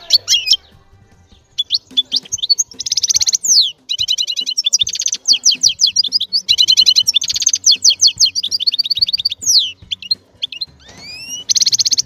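A finch singing a loud, fast song of rapid trills and quick sweeping high whistles, broken by short pauses.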